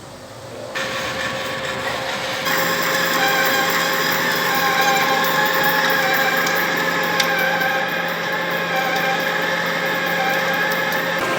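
Manual metal lathe running, growing louder in two steps in the first few seconds, then holding steady with a wavering high tone.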